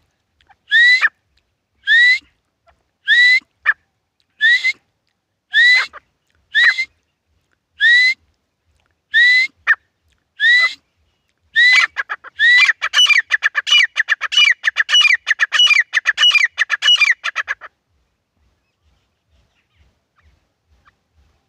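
Caged grey francolins (titar) calling: a loud, rising call repeated about once every second or so, then, about halfway through, a fast run of calls crowding together for some six seconds before it stops abruptly.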